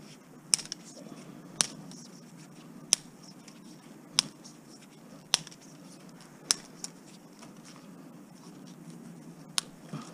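A run of sharp clicks from hand work at a stuck part being worked loose, about one every second, then a pause of a few seconds before one last click near the end.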